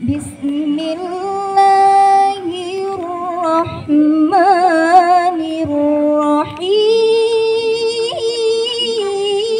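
A woman reciting the Quran solo in melodic tilawah style, chanting long held notes broken by wavering ornamented runs. Her voice steps up to a higher pitch for the last few seconds.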